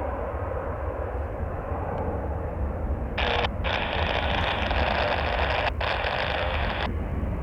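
Jet airliner engine noise at the airfield, with a heavy low wind rumble on the microphone. About three seconds in, a brighter hiss cuts in abruptly, drops out briefly twice, and stops just before the end.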